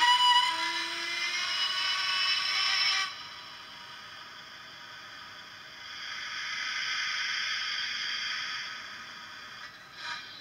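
Recorded steam-locomotive sounds from a Hornby model's sound decoder, played through its small speaker: a whistle blast for about three seconds, then a spell of steam hiss, then the first short exhaust beats as the model starts to move near the end.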